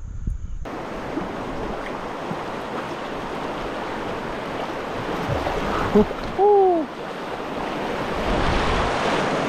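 Fast river current rushing and splashing through a shallow riffle around a kayak, a steady noise that starts just under a second in. About six and a half seconds in, a short loud call rises and then falls in pitch.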